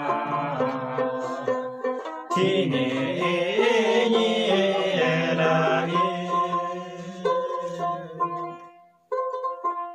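Hyolmo chhyanglu folk song sung by a group of men and women together, accompanied by a small plucked lute. The singing ends about eight and a half seconds in, leaving the lute playing alone.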